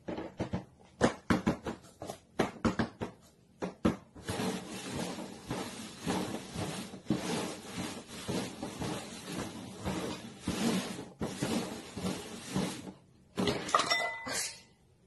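Red paper cups being knocked down and slid around on the top of a cardboard box in a quick cup-shuffling game. A fast run of sharp taps comes first, then a long stretch of scraping and shuffling, and a short squeaky sound near the end.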